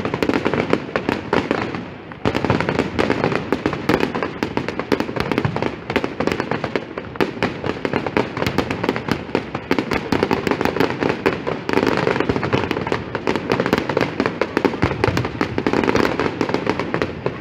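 Aerial fireworks bursting in a dense, unbroken barrage of sharp bangs and crackles, with a brief lull about two seconds in.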